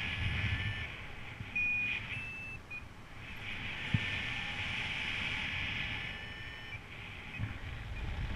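Paragliding variometer beeping a few short high tones that step up in pitch about one and a half to two and a half seconds in, the signal of the glider climbing in lift, over a steady rush of airflow and wind on the microphone.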